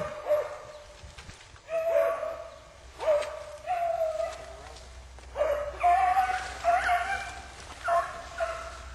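Hunting beagles baying on a rabbit's trail: a run of about ten drawn-out bawls, coming in quick bunches with short gaps between.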